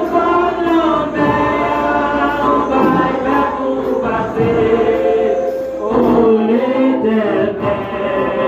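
A choir of several voices singing a gospel song, holding long notes together.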